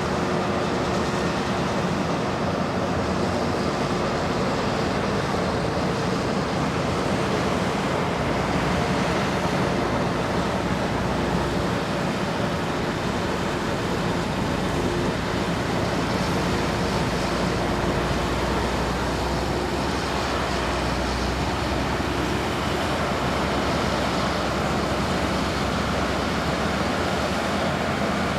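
Massey Ferguson combine harvester running steadily under load, an even engine drone with a held hum and the rush of the threshing works.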